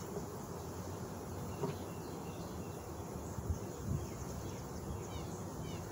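Honeybees buzzing steadily around an opened hive while frames are worked, with a few small knocks. Short bird chirps come in near the end.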